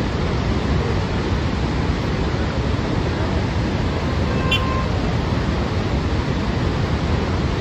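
Steady rush of floodwater pouring down the Srisailam Dam spillway from its open gates and crashing into the river below. A brief high tone is heard about four and a half seconds in.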